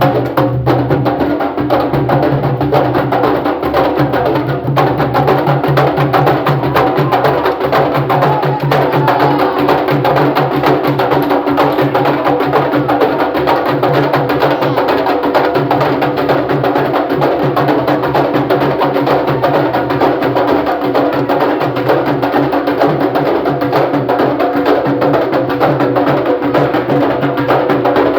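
Candombe drum ensemble playing a continuous rhythm: chico, repique and piano drums struck with hand and stick, with the sharp clicks of sticks on the wooden drum shells.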